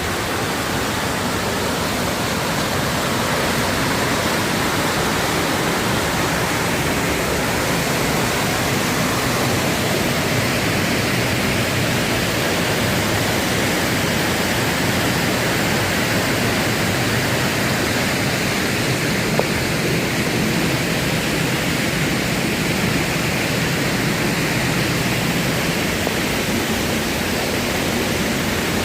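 Steady rushing of a waterfall, an unbroken wash of water noise, with a single brief tick about two-thirds of the way through.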